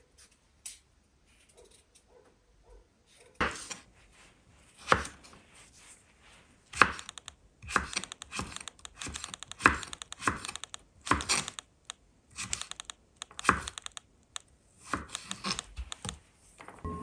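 Irregular knocks and clicks of kitchen work, with a strong knock about every second and a half and lighter clicks between.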